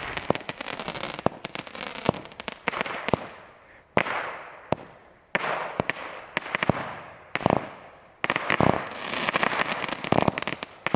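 Consumer firework cake firing: a run of sharp bangs and pops, with big reports about four, five and a half and eight seconds in, each trailing off in a fading crackle.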